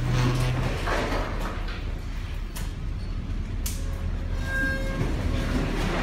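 Steady low rumble of a container ship's engine and hull, heard from inside the wheelhouse as the ship rolls heavily in a rough sea. Short creaks and a few sharp knocks and rattles from the fittings come through it.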